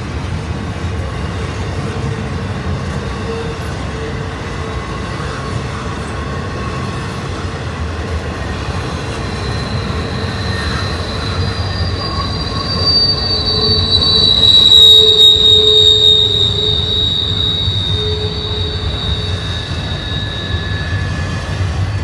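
Double-stack intermodal freight train's well cars rolling past with a steady low rumble. A high-pitched wheel squeal builds past the middle, is loudest about two-thirds through, and fades near the end.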